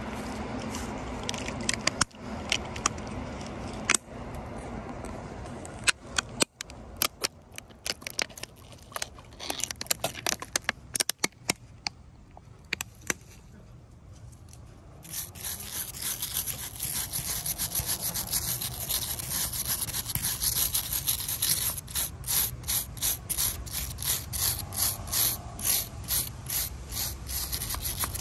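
Footsteps crunching on gravel, likely railway track ballast, at a steady walking pace of about two steps a second in the second half, after a stretch of irregular clicks and knocks.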